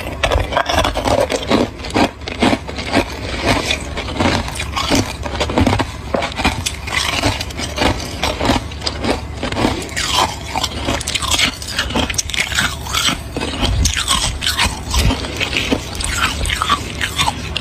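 Hard chunks of ice being bitten and chewed close to the microphone: a fast, irregular run of sharp cracks and crunches.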